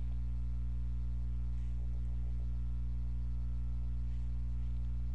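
Steady low electrical hum with a faint buzz, unchanging throughout; no other sound stands out.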